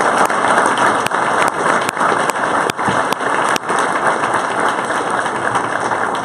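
Audience applauding, with a few sharper single claps standing out about every half second early on, and the applause easing off toward the end.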